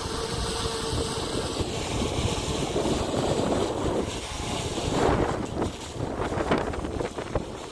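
Strong gusty wind buffeting the camera's microphone: a rumbling rush of wind noise that swells and eases with the gusts.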